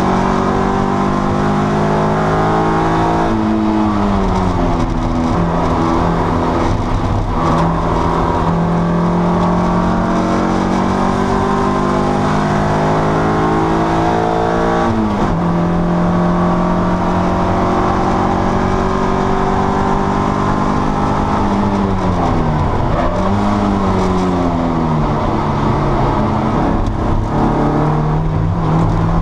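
Racing car's engine heard from inside the cockpit at speed: a loud, steady engine note that falls away sharply about four seconds in, again about fifteen seconds in, and twice more in quick succession past twenty seconds, climbing back each time as the car lifts off and brakes for corners, then accelerates out.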